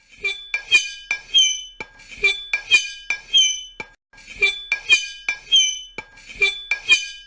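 High-pitched squeaking scrapes, hard material rubbed against glass or a similar hard surface. They come in four runs about every two seconds, each run several short squeals that dip slightly in pitch, with light clicks between.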